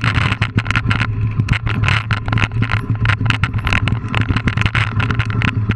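Mountain bike rattling over a rocky dirt trail, heard from a camera mounted on the bike or rider: a dense run of irregular clicks and knocks from the bike and tyres jolting on rock, over a steady low hum.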